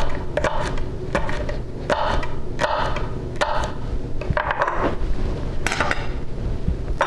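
Chef's knife chopping a jalapeño on a wooden butcher-block cutting board: a run of sharp knocks on the wood, about two a second, with a short pause about four seconds in.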